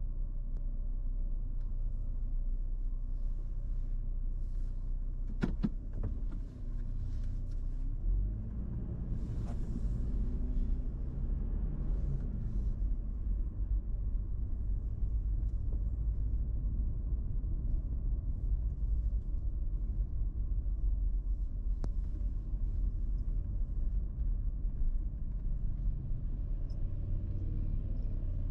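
Toyota 4Runner driving slowly on a wet road, heard from inside the cabin: a steady low engine and road rumble, with a couple of sharp clicks and a brief hiss partway through.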